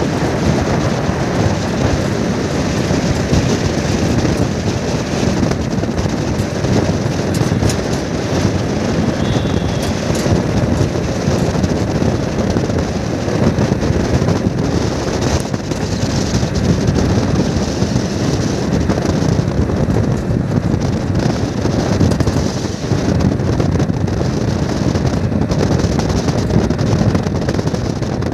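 Steady wind and road noise from a vehicle moving at highway speed, with wind rushing over the microphone.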